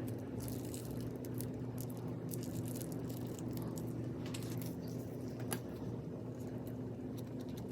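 Crunchy slime packed with beads being pressed and squished by hand, giving irregular crackles and clicks. A steady low hum runs underneath.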